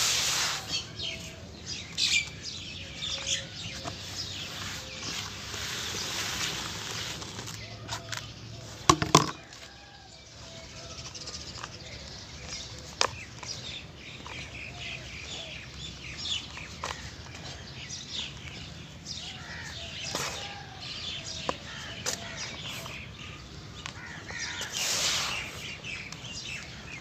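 Soft cement crumbling and being crushed, with many small crackles and gritty falls, and two sharp loud snaps about nine seconds in.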